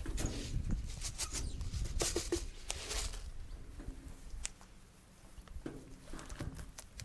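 Wild cockatoos feeding close by: irregular small clicks, crunches and scratchy pattering of beaks and feet on food, with a few brief squeaks, busiest in the first few seconds and thinning out after.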